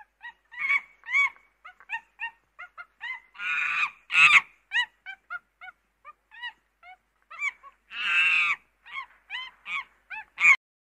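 Monkey calls: a quick string of short, arching hoots and chirps, with two longer harsh screeches about four and eight seconds in.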